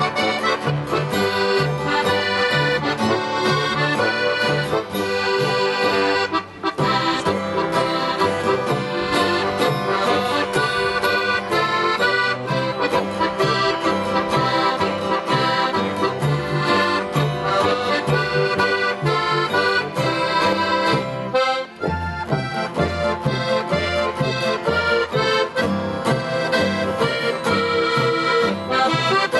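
Alpine folk band playing an instrumental tune, led by a Steirische Harmonika (diatonic button accordion) over acoustic guitar, tuba and upright double bass keeping a steady bass beat. The music breaks off for a split second twice, about six and twenty-two seconds in.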